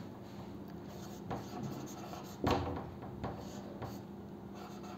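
Felt-tip marker squeaking and rubbing on a whiteboard as words are written, faint, with a few light ticks and one soft knock about halfway through.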